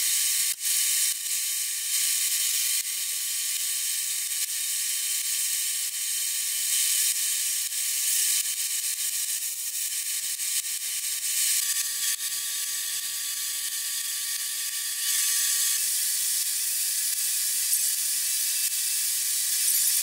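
Compressed-air gravity-feed spray gun spraying white finish: a steady high hiss of air with a faint thin whistle beneath it.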